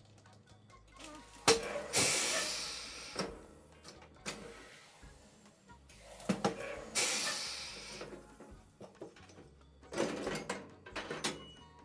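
Tire changer at work: a sharp metal clank, then a hiss of air lasting a second or two, three times over.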